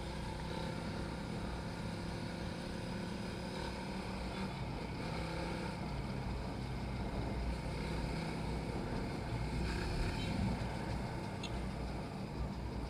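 Suzuki Raider 150 Fi's single-cylinder four-stroke engine running steadily as the motorcycle cruises at city speed, with road noise.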